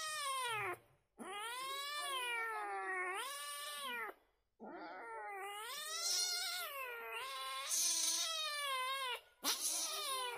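Calico cat screaming as a white cat pins it down by the scruff of the neck: a run of long, wavering yowls that rise and fall in pitch, with three short breaks for breath.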